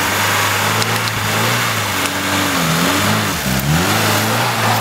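Lada Niva's engine revving under load as the car works through deep mud. The pitch dips and climbs again about three seconds in, over a steady hiss.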